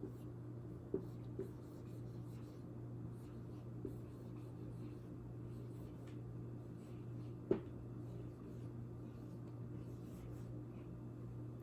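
Faint writing sounds with a few light clicks over a steady low electrical hum.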